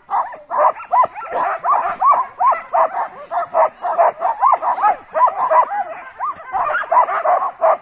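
A team of sled dogs barking and yipping over and over, several dogs at once, about three high barks a second. The dogs are eager to run while the sled is held back on its brake.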